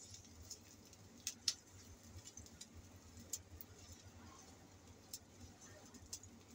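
Silicone spatula stirring minced garlic in a nonstick frying pan, scraping faintly with a few light clicks against the pan, the sharpest about a second and a half in.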